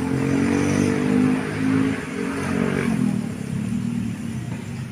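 A motor vehicle engine running close by, its pitch rising and falling a little.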